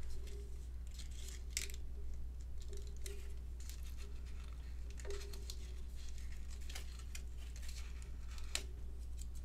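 Soft paper rustling and light taps and clicks as small paper leaf embellishments are handled and pressed onto a scrapbook page with glue dots, over a steady low hum.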